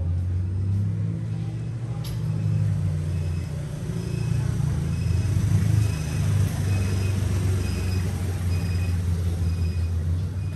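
A steady low motor hum, with faint short high peeps repeating about every 0.7 s.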